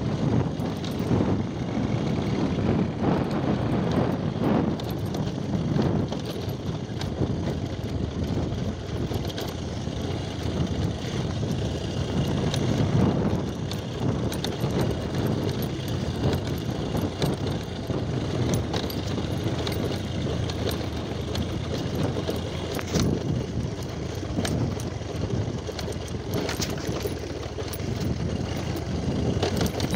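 Motorcycle riding over a rough dirt track: a steady, noisy rumble of engine and road noise, with scattered knocks and rattles from the bumps.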